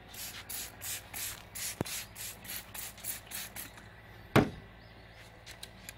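Trigger spray bottle squirting water onto a headlight lens for wet sanding, in quick hissing squirts about four a second for around four seconds, then a single sharp knock.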